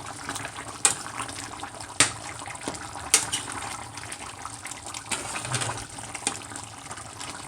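A pot of stew chicken simmering on the stove: a steady bubbling with irregular sharp pops about once a second.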